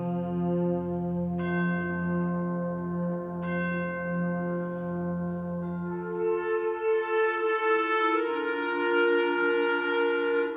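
Concert band of brass and woodwinds playing a quiet passage of long held chords. New upper notes come in twice in the first few seconds. The low bass note drops out about six seconds in, and the upper voices then move to new chords.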